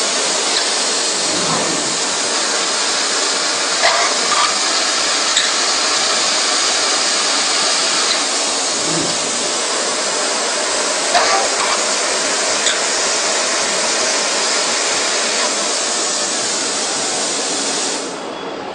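CNC machining center running a drilling cycle: a steady, loud hiss with a few short clicks along the way, which drops off just before the end.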